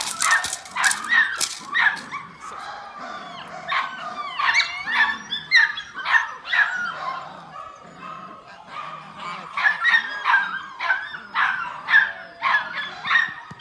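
Seven-week-old Malinois puppy yipping and barking over and over while tugging on a bite pillow, short high calls that often fall in pitch.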